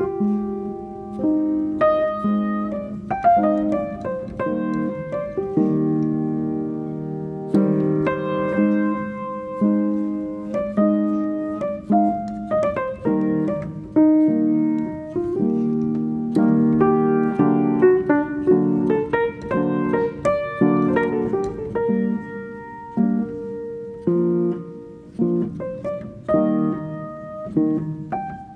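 Background piano music, with notes struck and left to fade.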